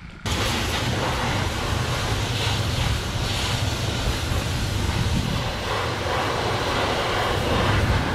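Pressure washer running, its motor giving a steady low hum under the hiss of the high-pressure water jet spraying down an old tractor. The noise starts suddenly just after the beginning and holds steady.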